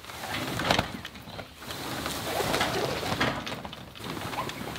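Rustling and scraping through tall, overgrown grass, with scattered knocks, as a wooden chicken tractor is hauled out across the grass.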